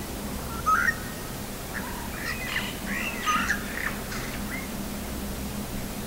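A bird calling: a short loud chirp just under a second in, then a run of quick, sliding chirps and warbled notes for about three seconds.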